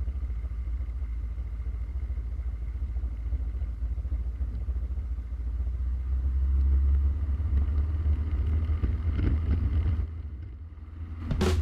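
Jodel DR1050 light aircraft's piston engine and propeller at takeoff power during the takeoff roll, heard from inside the cockpit. The engine noise grows louder about six seconds in and drops briefly near the end.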